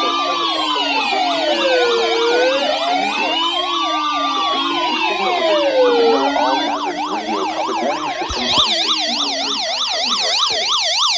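Several electronic sirens sounding together: a slow wail rising and falling about every four seconds over quicker yelping sirens. The slow wail stops about six seconds in, leaving the rapid yelps, and a higher, faster yelp joins near the end.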